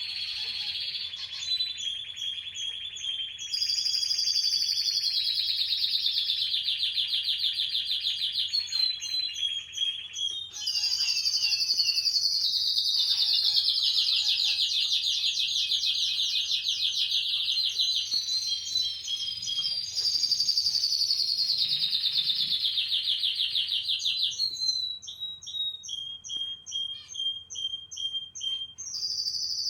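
Domestic canary singing: a long, continuous high-pitched song of rapid rolling trills, switching to a new trill every few seconds, breaking into separate short notes near the end.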